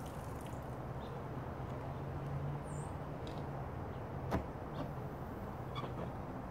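A steady low mechanical hum, with one sharp click about four seconds in.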